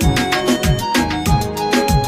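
Background music: an instrumental beat with a steady rhythm, kick-drum hits that drop in pitch about twice a second, sharp percussion and a melodic line over it.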